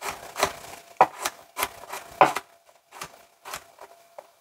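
A chef's knife dicing carrots on a plastic cutting board: irregular knocks of the blade striking the board, about two a second.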